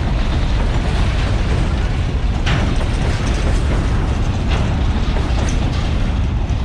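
Freight train wagons (covered hoppers and boxcars) rolling past close by: a loud, steady rumble of steel wheels on the rails, with a sharp clank about two and a half seconds in and another a couple of seconds later.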